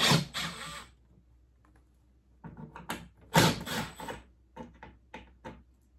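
Plastic cover being worked loose and pulled off a ductless ceiling cassette by hand: two scraping, rattling bursts about three seconds apart, with a few light clicks and knocks between them.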